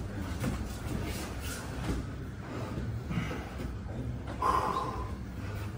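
Breathing and scuffling of jiu-jitsu players grappling on the mats, gis rubbing against each other and the mat, with a brief louder noise about four and a half seconds in.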